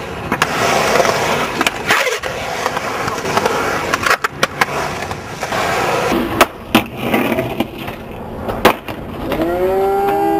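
Skateboard wheels rolling across concrete ramps, with several sharp clacks of the board striking the concrete. Near the end a steady pitched sound comes in over the rolling.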